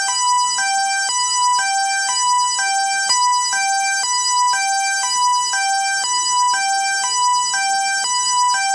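SEGA UFO Catcher 9 crane game machine sounding its electronic alarm: two beeping tones alternate high and low, each held about half a second, repeating steadily like a hi-lo siren.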